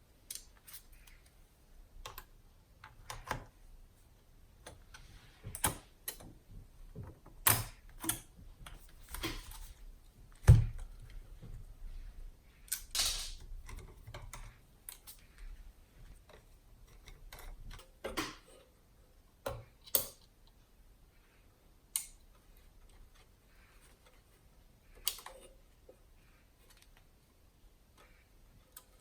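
Irregular clicks, taps and knocks of plastic and metal parts being handled and fitted together while a car's touch-screen radio unit is reassembled, with one louder knock about ten seconds in and a short rustle soon after.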